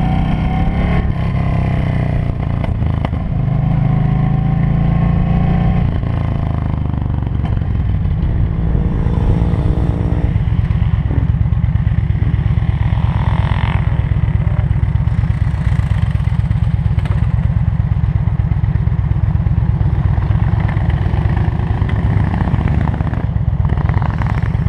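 Cruiser motorcycle engine, its note stepping down over the first several seconds as the bike slows, then idling with a rapid, even beat from about eight seconds in.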